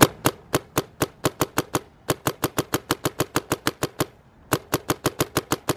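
Dye M2 MOS Air paintball marker firing a fast string of semi-automatic shots, sharp pops at about six a second, breaking off briefly about four seconds in and then starting again.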